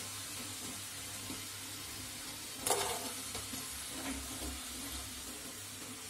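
Breaded potato snacks sizzling in hot oil in a kadhai: a steady frying hiss. About two and a half seconds in a wire skimmer gives a sharp clink, followed by a few lighter knocks as pieces are lifted out.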